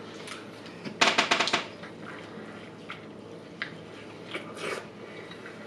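Eating and drinking sounds at a table: a short crackling burst about a second in, then a few faint clicks and soft chewing and mouth sounds.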